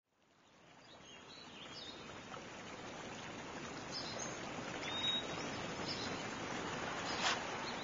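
A steady rushing ambience fading in from silence, with a few short high bird chirps scattered through it and several sharp clicks near the end.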